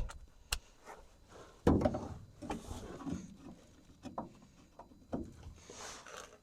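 Scattered metal clinks and knocks of a socket on a wobble extension being worked onto a bolt under the truck, with a louder cluster of knocks about two seconds in and a soft scrape near the end.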